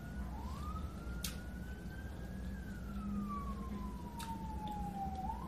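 Emergency vehicle siren in slow wail: a single tone rises, holds, slides slowly down over about three seconds, then starts rising again near the end. Underneath are a low steady hum and a couple of sharp clicks.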